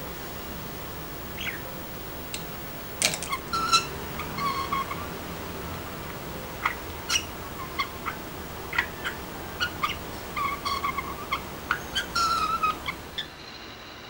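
Budgerigar chattering: a string of short chirps, clicks and warbled notes, loudest about three seconds in and again near the end.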